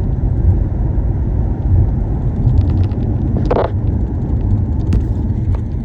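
Steady low road and engine rumble inside the cabin of a Honda Pilot driving at speed. A short, louder sound comes through about three and a half seconds in.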